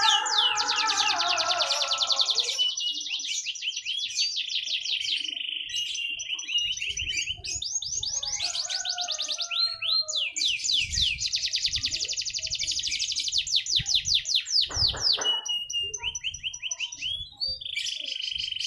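Domestic canary singing: long, high runs of rapid repeated chirps and rolling trills, broken by short pauses. A lower, wavering pitched tone sounds under the song for the first two seconds, and there is a low thump about fifteen seconds in.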